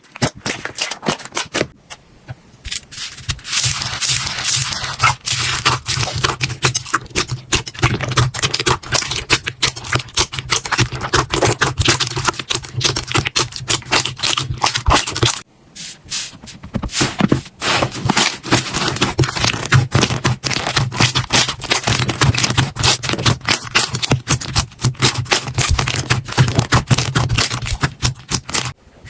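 Slime being squeezed, pressed and poked by hand, giving a dense run of crackling clicks and pops. It stops briefly about halfway through, then carries on in the same way.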